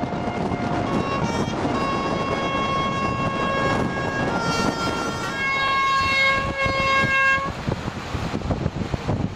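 Car horns sounding in long held notes at several different pitches, some overlapping, loudest about six to seven and a half seconds in, over the wind and road rumble of a ride in an open convertible.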